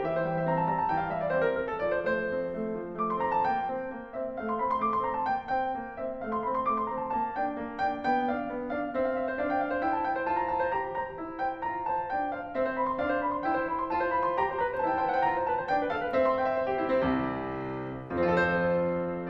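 Background piano music: a flowing line of notes over held chords.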